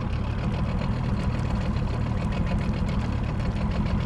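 Boat motor running steadily at low speed, as when trolling, with a rapid even pulse to it.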